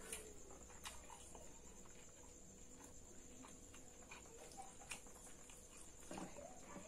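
Faint eating sounds of an animal: scattered soft clicks and small mouth noises every second or so, over a steady high-pitched hiss.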